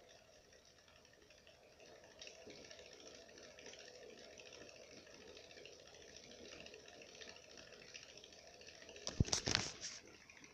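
Syrian hamster's paws pattering quickly and faintly on the cork running surface of a wooden ball-bearing exercise wheel, which makes no sound of its own. About nine seconds in, a brief cluster of several loud, sharp clicks.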